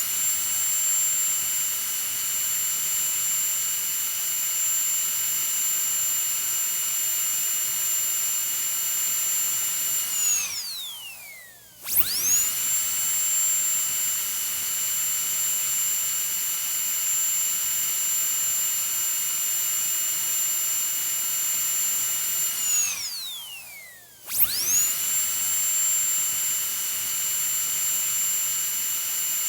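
Dentist's drill whining at a steady high pitch. It runs up quickly three times, near the start, about 12 seconds in and about 24 seconds in, holds for around ten seconds each time, and winds down with a falling whine between runs.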